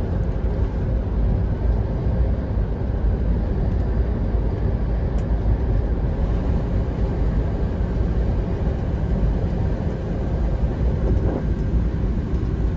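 Semi-truck engine and road noise, a steady low drone.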